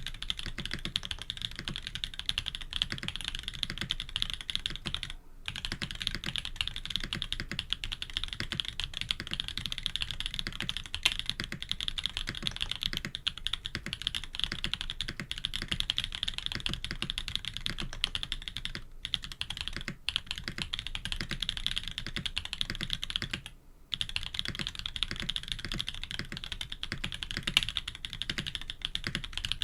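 Fast, steady typing on a K80 custom mechanical keyboard with Jade Black switches, PBT keycaps and an FR4 plate, the keystrokes running together into a continuous clatter. It stops briefly about five seconds in, around nineteen seconds, and just before twenty-four seconds.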